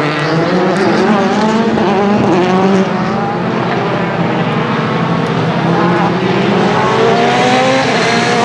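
Rally car engine revving hard as the car accelerates through the gears, its pitch climbing and dropping back at each shift, with a long climb near the end.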